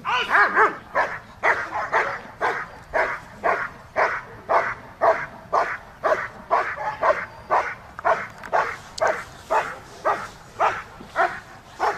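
German Shepherd Dog barking in a steady series, about two loud barks a second.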